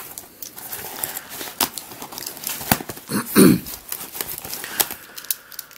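A parcel's packaging being opened by hand: crinkling, rustling and tearing of wrapping material with many small clicks. A brief falling pitched sound stands out about three and a half seconds in.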